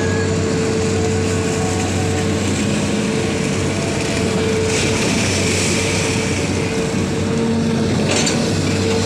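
Excavator engine running steadily with a constant hum, with brief hissing noises about halfway through and again near the end.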